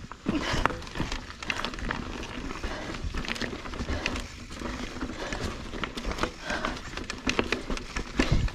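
Mountain bike rolling over rocky dirt singletrack: tyres crunching over dirt and stones, with frequent sharp knocks and rattles as the bike hits rocks.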